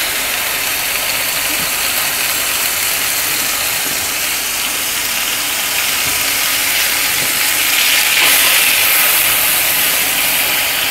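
Marinated chicken pieces sizzling in hot oil in a frying pan, a steady crackling hiss that grows louder about eight seconds in.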